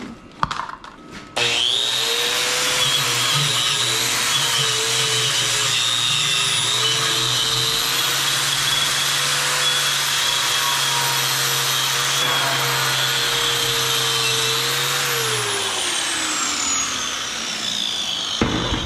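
Angle grinder fitted with a wire cup brush scouring rust and scale off rebar. The motor starts about a second in and runs steadily for about fourteen seconds, its high whine wavering a little under the rough scrubbing hiss of the brush. It is then switched off and winds down with a falling whine.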